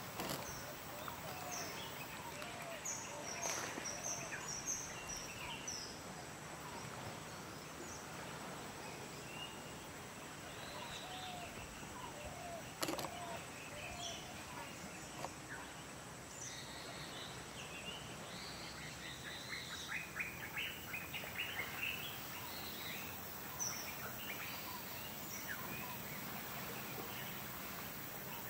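Birds calling and chirping over a steady outdoor hiss, with short scattered chirps throughout and a quicker run of chirps in the second half. One sharp click comes about halfway.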